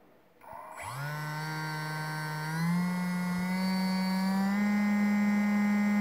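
Small brushless outrunner motor driven by an ESC spinning up from rest about a second in with a steady whine, then stepping up in pitch and loudness twice as its speed is raised in steps by button presses.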